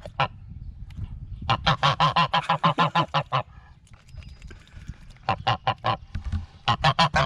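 Goose honking in rapid runs of calls, about eight a second, with short pauses between the runs.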